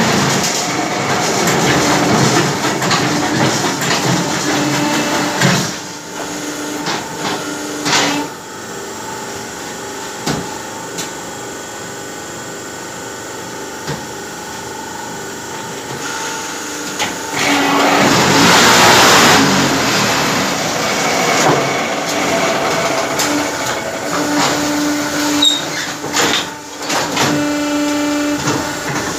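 Concrete paver block making machine running: a steady mechanical hum with repeated knocks and clanks. About eighteen seconds in there is a louder surge of noise lasting roughly two seconds.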